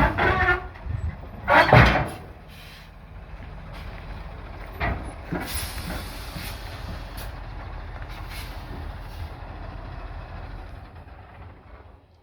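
Heavy truck engine running. Two loud bursts come in the first two seconds, then a steady low engine drone fades near the end.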